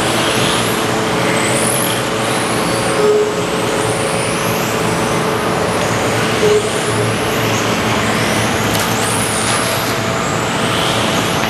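Electric R/C race cars' brushless motors whining, the high pitch rising and falling again and again as the cars accelerate and brake, over a steady noisy background. Two short beeps, about three seconds in and again past six seconds.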